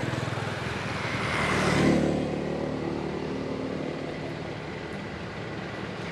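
A motorbike passing by on the road: its engine grows louder, is loudest about two seconds in, then drops in pitch and fades away.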